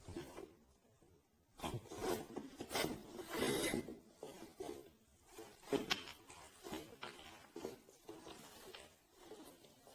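Irregular rubbing and scraping noises, loudest in a cluster of long scrapes about two to four seconds in, then scattered shorter scrapes and clicks.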